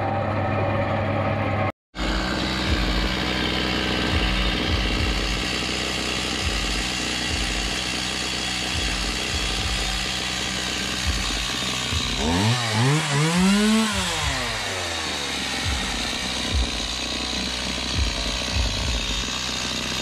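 Stihl chainsaw's two-stroke engine running steadily, revving up and back down once about twelve seconds in. For the first two seconds, before a cut, a different machine hums: a sawmill's belt-driven circular saw.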